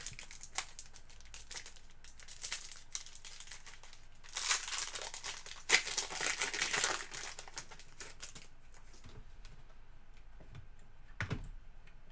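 Trading-card pack wrapper crinkling and tearing as it is handled and opened, loudest for about two and a half seconds in the middle, with scattered crackles before and a soft thump near the end.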